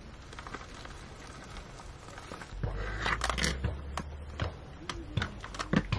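Clicks, knocks and scraping of camping gear being handled at close range, over a low steady rumble. The handling sounds come mostly in the second half.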